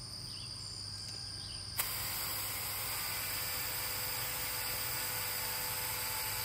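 Evolution magnetic drill running, its cutter boring a hole through steel plate: a steady motor whine with cutting noise that starts suddenly about two seconds in. Before it, only a quieter high steady tone with faint chirps.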